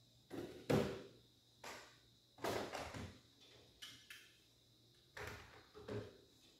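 Hand tools being picked up and set down on a workshop tool table: a series of separate knocks and clinks, the loudest a little under a second in, one with a brief ring about four seconds in.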